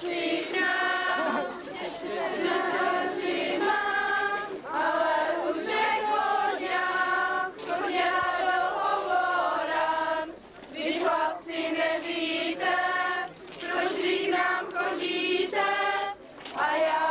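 A group of women singing a folk song together, with sustained notes and short pauses between phrases.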